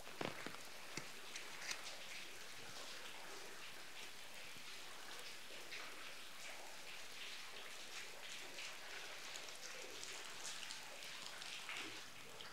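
Light rain falling steadily, a faint patter of drops with a few sharper clicks in the first two seconds.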